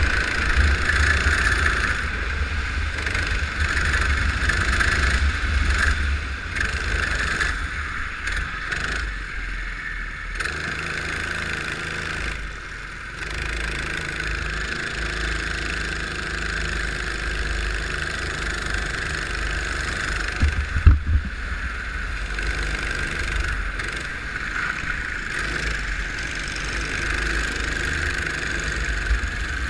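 Go-kart engine running under way, dropping away briefly twice, about nine and thirteen seconds in, and picking up again. A short sharp knock a little after twenty seconds in.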